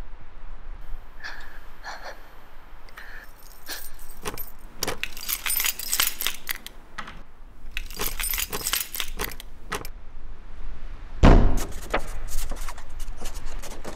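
A bunch of metal keys jangling and clinking in the hands at a door, in clusters of quick rattles. Later a single heavy thump, the loudest sound, is followed by more clinking.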